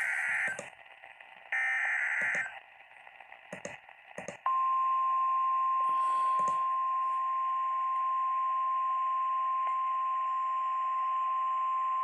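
Emergency Alert System weather-radio activation: the last two short bursts of the digital SAME header data tones, near the start and about a second and a half in. After a pause, the single steady 1050 Hz NOAA Weather Radio warning alarm tone starts about four and a half seconds in and holds, over radio hiss.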